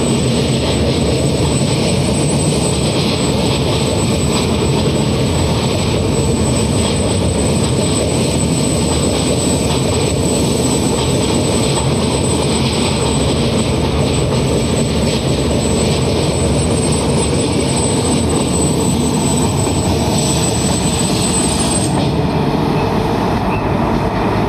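Rajdhani Express passenger coaches rolling past at speed over a steel girder bridge: a loud, steady rumble, with a thin high whine above it that stops near the end.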